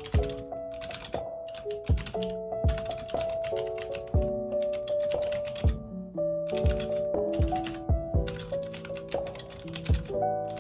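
Typing on a computer keyboard in quick runs of keystrokes with short pauses between them, over background music.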